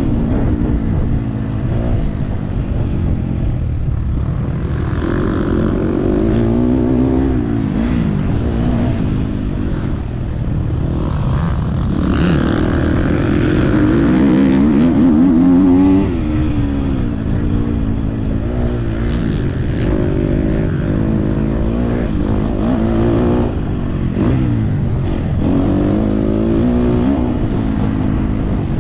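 Motocross bike engine under hard riding, its revs rising and falling again and again as the rider accelerates, shifts and backs off, held highest for a few seconds in the middle.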